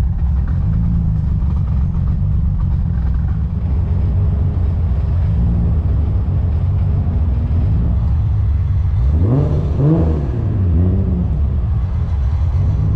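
Car engine running steadily under way, with road noise, revving up and dropping back down about nine seconds in.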